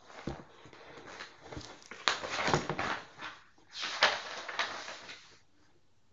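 A large hardcover picture book being closed and set aside: paper and covers rustling and shuffling in two main bursts, about two and four seconds in, stopping a little after five seconds.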